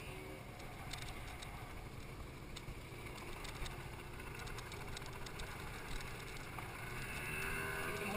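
Motor scooter running under way, its engine mixed with a steady low rumble of wind on the microphone and scattered small rattling ticks; it grows a little louder near the end.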